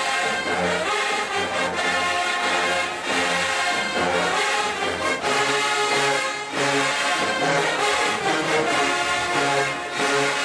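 Marching band brass section playing at full volume: trombones, trumpets and low brass sounding together over a repeating bass line.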